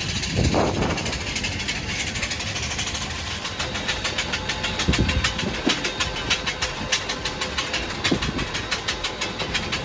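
Steady hum of a parked Airbus A320 cabin during boarding. A rapid, even pulsing sets in about three and a half seconds in, and there are a few dull thumps.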